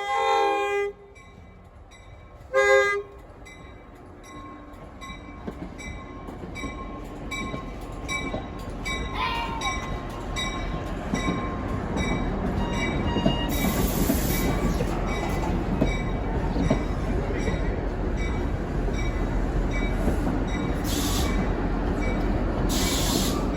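NJ Transit diesel train horn: a multi-note chord cuts off about a second in, then one short blast a couple of seconds later. After that the train's rumble grows steadily louder, with brief high wheel squeals from about halfway on.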